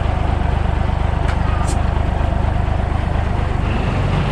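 Diesel truck engine idling steadily with an even low pulse, heard close to its vertical exhaust stack.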